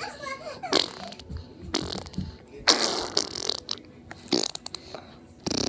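A string of separate fart sounds: about four short ones, spaced roughly a second apart, then a louder, longer one starting near the end.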